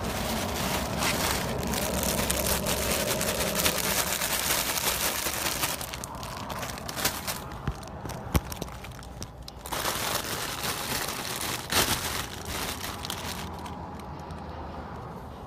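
Rustling, crinkling handling noise as a phone is moved and rubbed about, loudest at the start and again a little past the middle, with a few sharp clicks.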